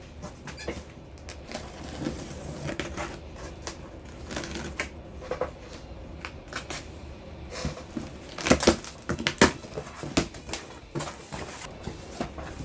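Handling of an action figure's cardboard box and plastic packaging: scattered rustles and clicks, with a few louder knocks about eight and a half to nine and a half seconds in.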